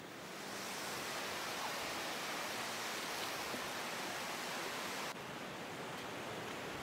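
Steady rushing of a river in flood, a continuous noise of fast-flowing muddy water, dropping slightly in level and changing about five seconds in.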